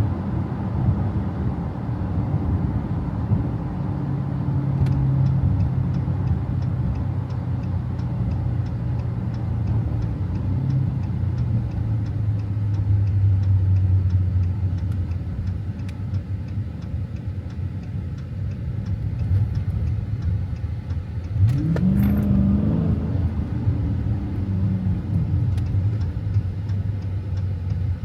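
Dodge Challenger Scat Pack's 392 HEMI V8 running while the car is driven, with a steady low engine note. About 21 seconds in the engine pitch rises briefly, holds, then falls back a few seconds later.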